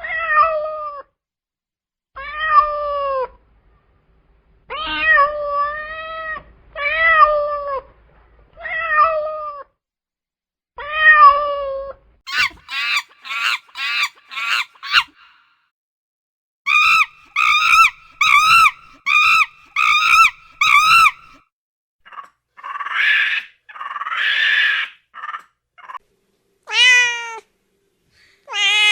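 Cats meowing: about six separate drawn-out meows, then quicker runs of short, higher-pitched mews, several a second.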